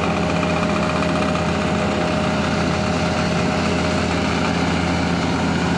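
An engine idling steadily with an even hum that does not rise or fall.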